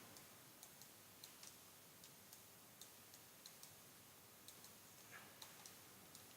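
Faint computer mouse clicks, a dozen or more short clicks at irregular intervals over a quiet room background.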